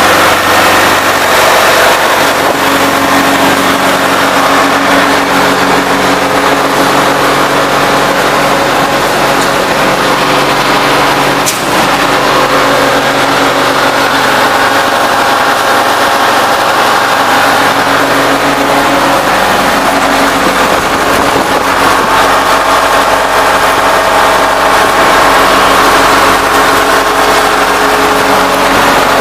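A 2002 Sullivan 375 CFM portable air compressor's engine running steadily and loud, with a brief dip and a click about eleven seconds in.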